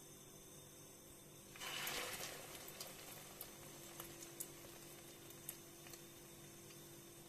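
Egg-coated meatball going into hot oil in a frying pan: a sudden sizzle about one and a half seconds in that fades over a second, then scattered sharp pops and spits of the frying oil.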